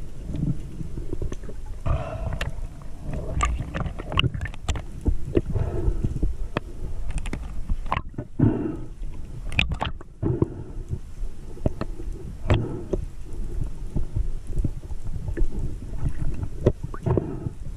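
Muffled underwater sound picked up by a camera in the sea: a steady low rumble, swishing pulses every second or two, and scattered sharp clicks.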